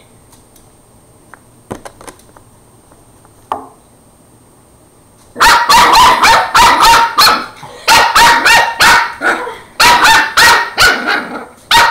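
Border terrier puppy barking: after a few faint knocks, it breaks into a fast run of loud barks, about three a second, starting about five seconds in.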